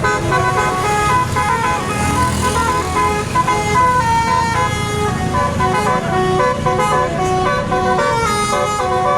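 Bus telolet horn, a multi-tone horn, playing a quick tune of short stepped notes, with a low rumble beneath.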